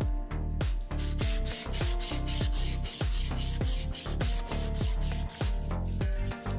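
A sanding sponge rubbed back and forth along a steel knife blade, a steady gritty hiss that fades out near the end. Background music with a steady beat plays underneath.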